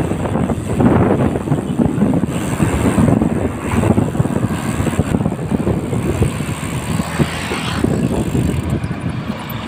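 Wind rushing over the microphone of a moving bicycle, with tyre noise on the concrete road and motor traffic going by. The noise is loud, steady and rough throughout.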